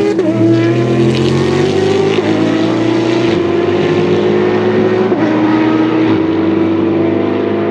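Race car engines at full throttle as the cars accelerate away down the track, the pitch climbing and then stepping down about four times with upshifts.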